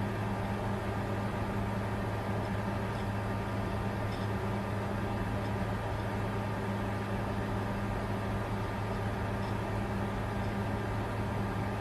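Cryptocurrency mining computer running steadily: a constant fan whir with a low, even hum and a faint high steady tone.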